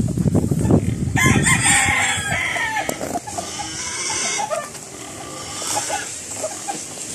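Roosters crowing, several long crows one after another, with clucking between them. A low rumble in the first second.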